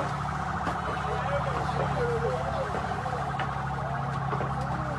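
Street noise: an engine runs steadily under a fast, warbling siren-like alarm tone, with distant voices calling.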